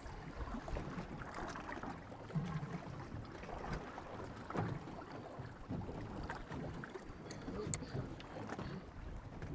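Water slapping and sloshing against a small boat's hull on a choppy sea, in uneven surges, with wind on the microphone. A few light clicks come near the end.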